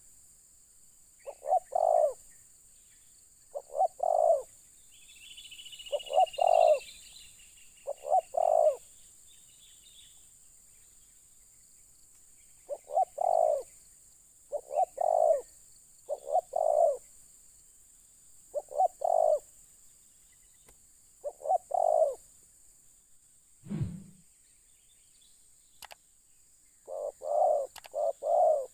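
Spotted dove cooing in short doubled notes, repeated about every two seconds with a couple of pauses and a quicker run near the end. Another bird gives a thin falling whistle about six seconds in, and there is a low thump near the end.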